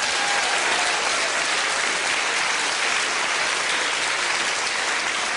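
Theatre audience applauding steadily, a dense sustained clapping.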